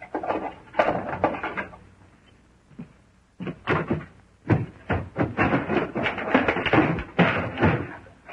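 A cell door and its lock being worked: a run of knocks, clanks and rattles, with a quiet gap about two seconds in and denser clattering over the last few seconds.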